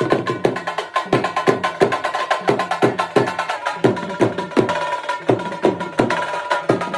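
Garba music driven by dhol drumming: a steady beat of about three strokes a second, the low strokes dropping in pitch.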